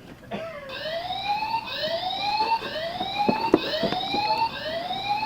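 SpyNet Laser Trip Wire toy alarm sounding a whooping electronic siren, the sign that the laser beam has been broken. Each whoop rises in pitch, about one a second, starting a little under a second in. A few sharp clicks come partway through.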